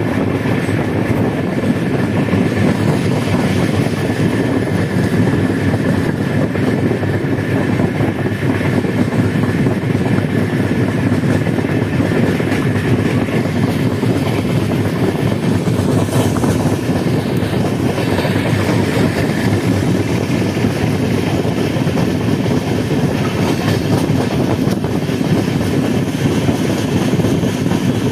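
Indian Railways passenger coach running along the track at speed, heard from the open window close to the coach side: a loud, steady rumble and clatter of wheels on the rails.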